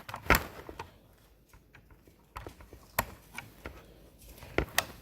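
Handling noise from a toy car and its charger: a few sharp clicks and knocks. The loudest come about a third of a second in and at three seconds, with two close together near the end.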